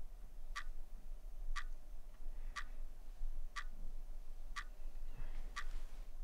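A clock ticking steadily, one sharp tick each second, over a faint low hum; a soft rustle of movement comes about five seconds in.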